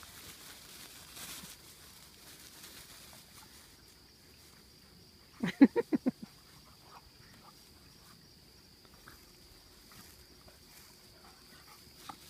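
Two dogs play-fighting on grass, with a quick run of about six short barks or growls about halfway through; the rest is faint scuffling.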